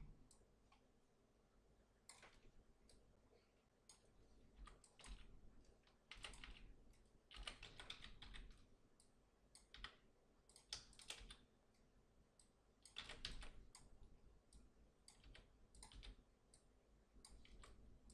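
Faint computer keyboard typing and clicking, in irregular clusters of a few keystrokes at a time.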